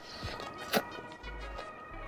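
Background music with sustained notes over a pulsing bass line. A single sharp click about three-quarters of a second in.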